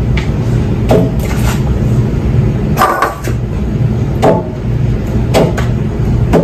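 Light knocks and clinks of a utensil against a glass baking dish as breaded chicken nuggets are handled, about nine short taps spread irregularly, some ringing briefly, over a steady low hum.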